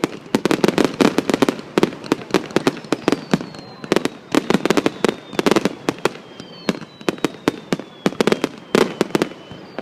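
Fireworks going off in a rapid, irregular string of sharp bangs and crackles, several a second, with thin falling whistles now and then.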